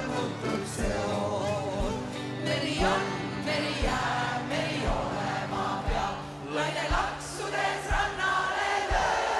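Live band music with several voices singing together over a steady kick-drum beat.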